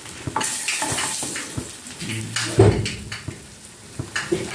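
A metal utensil clinking and scraping against a stainless-steel plate as fried dried fish are moved around, with a brief low pitched sound about two and a half seconds in.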